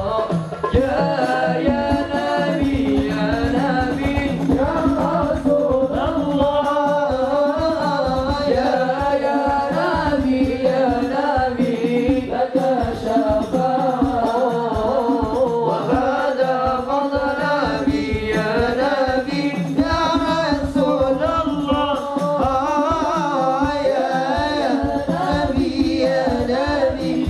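Male voices singing an Islamic sholawat in a melismatic style, with hadrah drum percussion keeping a fast, steady beat underneath.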